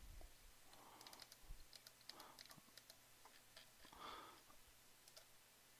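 Near silence: room tone with a few faint clicks from the computer's controls as the document is paged forward.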